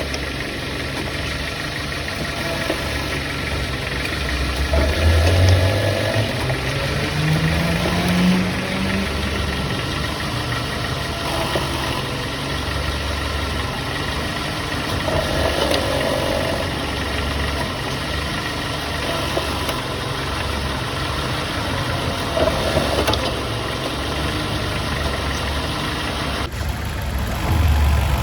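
Car engine idling, with the revs rising for a few seconds about five seconds in.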